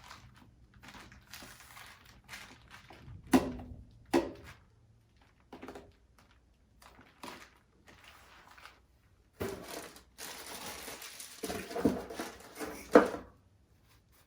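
Hands handling a doll and its packaging: a few sharp knocks and clicks, then a few seconds of crinkling and rustling ending in another knock.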